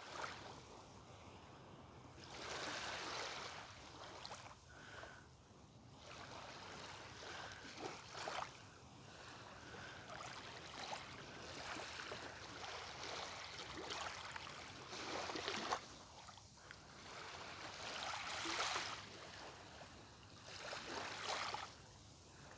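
Small, gentle waves washing up onto a sandy beach and sliding back, a soft hiss that swells and fades every few seconds.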